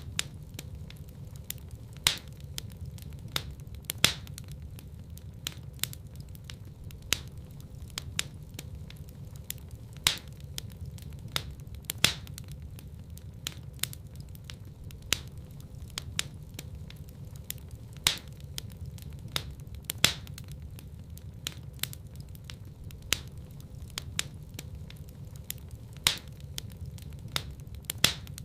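Wood fire burning in a fireplace, crackling and popping: sharp irregular pops, several a second with louder ones every couple of seconds, over a steady low rumble of the flames.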